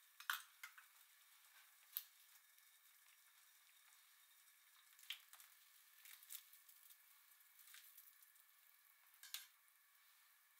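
Faint simmering hiss from a small stainless pot of broth on a gas burner, with scattered light clicks and taps, about seven in all, as daikon sticks are dropped into the pot and utensils knock.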